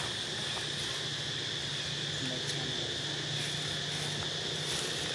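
Steady, high-pitched insect chorus trilling without a break, with a faint low hum beneath it.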